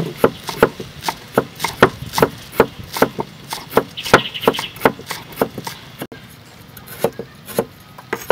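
Chef's knife chopping green onions on a wooden cutting board: a steady run of sharp knife strikes, about three a second, thinning after about six seconds to a few scattered knocks.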